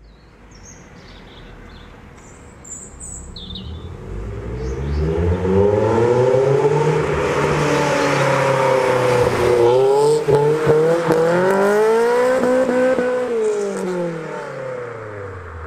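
A sports car's engine revving hard as it accelerates: the pitch climbs, drops sharply at a gear change about ten seconds in, climbs again, then falls away as the throttle comes off. Birds chirp faintly in the first few seconds.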